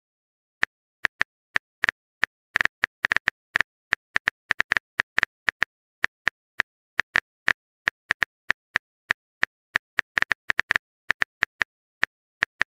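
Phone keyboard typing sound effect: a string of short, crisp clicks at an uneven pace, several a second, like keys being tapped as a chat message is typed.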